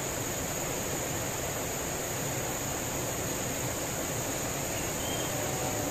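River rapids: a steady, even rush of water over rocks.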